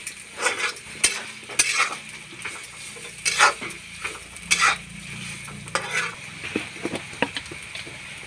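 Shredded carrot, capsicum and onion sizzling in oil in a kadhai while a metal spatula stirs and scrapes them against the pan, in strokes about once a second over a steady frying hiss.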